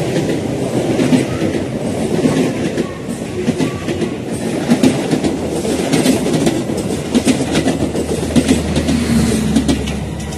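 Train of Ekonomi New Generation passenger coaches (the Majapahit trainset) passing close at speed, wheels clattering over rail joints in a steady rush. The sound fades as the last coach moves away near the end.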